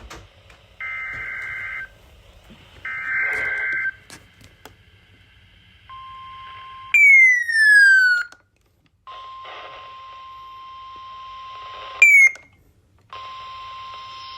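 Emergency Alert System broadcast on NOAA Weather Radio, heading a tornado warning: the last two of the three one-second warbling SAME digital header bursts, then the steady 1050 Hz warning alarm tone in three broken stretches. Loud descending electronic sweeps cut across the alarm tone, twice about seven seconds in and once briefly near twelve seconds.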